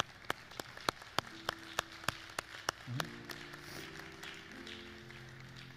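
One person clapping in a steady beat, about three claps a second, stopping a little under three seconds in. Congregation applause swells about a second in and fades near the end, over soft sustained music chords.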